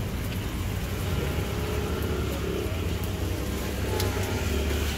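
A motor vehicle's engine running close by on the street, a steady low rumble with a droning hum, and a few light clicks near the end.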